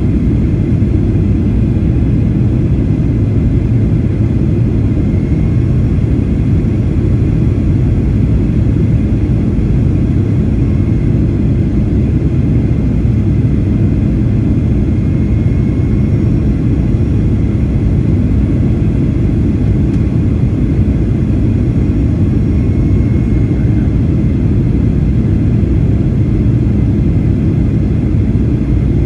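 Steady low cabin rumble inside a Boeing 737-800 on descent: airflow over the fuselage and the CFM56-7B turbofan engines, heard from a window seat beside the wing, with faint steady high tones over it.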